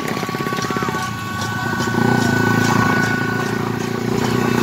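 Several motorbike engines running in a slow street procession, with a steady high horn tone held for a couple of seconds and faint regular knocks.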